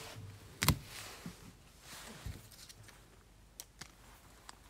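Quiet handling of trading cards and foil packs on a table: a sharp knock under a second in, faint rustling, then a few light clicks.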